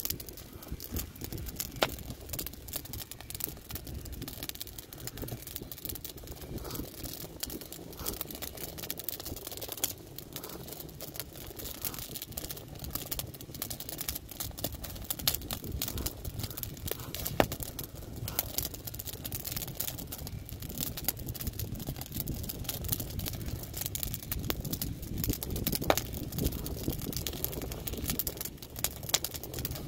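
Split-wood fire crackling and popping, with a few sharper pops about two seconds in, midway and near the end, over a low steady rumble.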